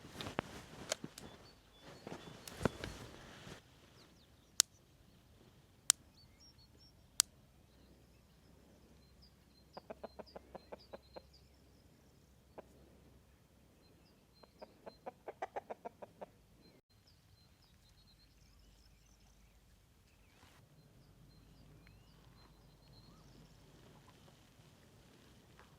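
Chickens clucking in two short rapid runs of clucks, with small birds chirping faintly high above. There are a few sharp clicks and some shuffling knocks near the start.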